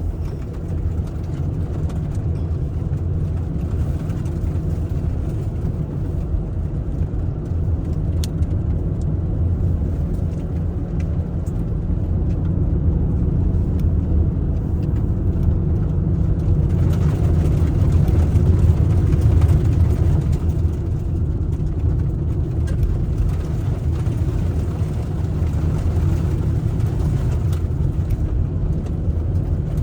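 Steady low rumble of a car driving, engine and tyre noise heard from inside the cabin, swelling a little louder for a while in the middle.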